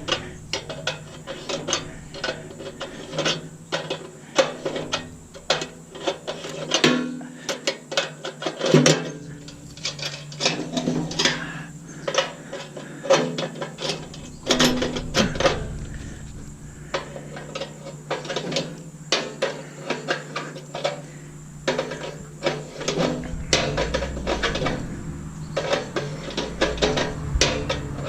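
Metal parts and hand tools clanking, clicking and rattling against the stainless-steel body of a Bunn-O-Matic coffee maker as it is taken apart by hand. The sharp knocks come irregularly throughout, several a second at times.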